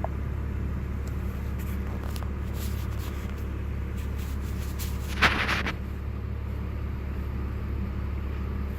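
BMW 330xi's 3.0-litre straight-six idling steadily with a low, even hum. There is a brief hiss about five seconds in.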